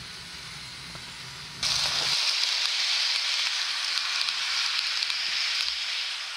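Model railway trains running on the layout: a low rumble of rolling stock on the track, then a sudden loud steady hiss starting about one and a half seconds in and lasting about four seconds, while the low rumble drops away.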